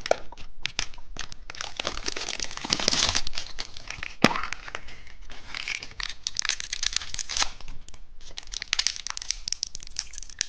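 Plastic wrapper of a surprise-egg candy being torn open and crinkled by hand: continuous crackling and rustling, with a sharp click about four seconds in.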